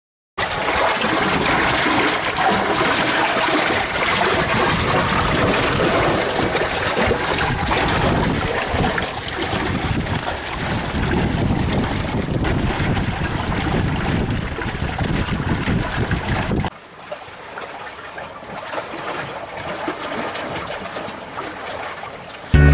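Water rushing and splashing along a sailboat's hull as it sails under way, a steady rough hiss. About three-quarters of the way through it cuts suddenly to a quieter wash of water.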